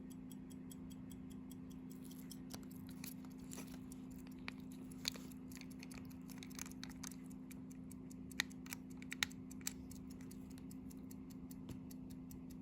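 Favre-Brandt antique chronograph pocket watch running and ticking evenly, about five ticks a second. From about two seconds in until near the end, irregular louder clicks and taps break in over the ticking.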